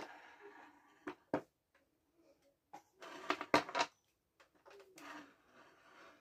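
Scattered wooden clicks and knocks from a wooden spinning wheel as the flyer and tension knob are handled, with a brief rustle of yarn around three seconds in and again near five seconds.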